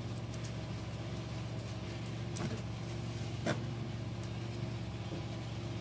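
Steady low room hum, with two faint short sounds about two and a half and three and a half seconds in.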